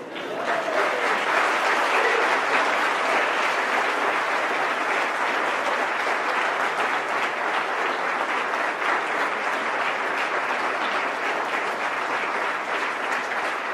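Congregation applauding, the clapping swelling within the first second and then holding steady.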